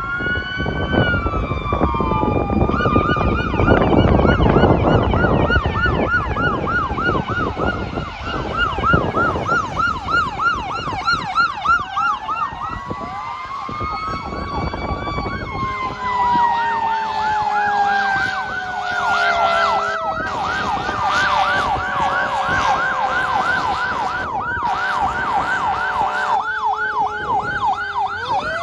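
Fire apparatus sirens on an emergency response: electronic sirens yelp rapidly over slower wailing sweeps, with heavy truck engine and road rumble in the first half. Later a long siren tone falls slowly while a fire truck's air horn sounds in steady blasts.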